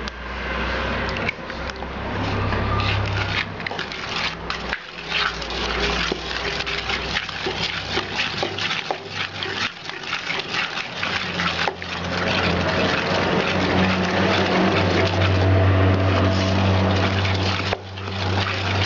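Wooden spoon beating thick cake batter of butter, sugar and eggs in a metal bowl: a fast, continuous run of scraping and knocking strokes, wood against metal. A steady low hum runs underneath and grows louder in the second half.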